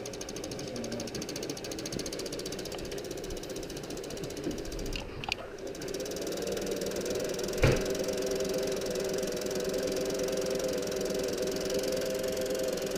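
Singer sewing machine's electric motor running, driven from its foot pedal and spinning a drill chuck mounted on the handwheel. It gives a steady mechanical hum that grows louder about six seconds in, with a single sharp click just before eight seconds.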